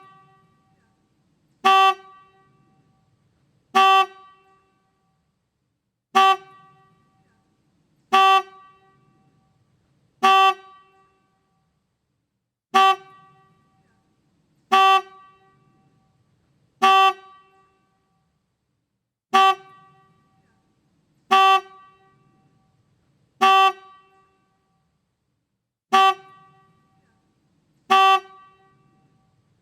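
Motorcycle horn giving short single honks, about thirteen of them, one roughly every two seconds. Each honk is a brief pitched tone followed by a short fading tail.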